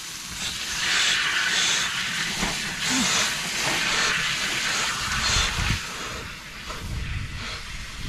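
Water under well-pump pressure spraying out of an open outdoor faucet head with a steady hiss, the faucet's stem and worn washer out and no shutoff valve to stop the flow. A few low thumps come in the second half.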